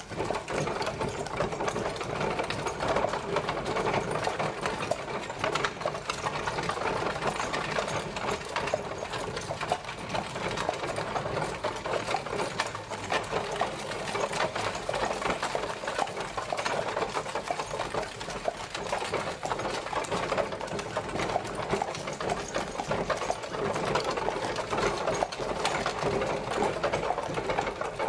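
Horse-drawn carriage travelling, a steady, dense rattling clatter that runs on without a break.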